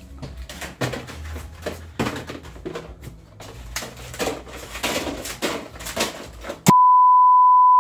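Packets of fishing tackle clicking and rattling as they are pulled off display hooks and dropped into a plastic tray. Near the end a loud, steady electronic beep cuts in and holds for about a second.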